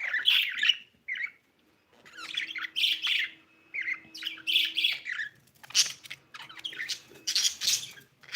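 Budgerigar chattering in bursts of rapid chirps and squawks, with a short pause about a second in.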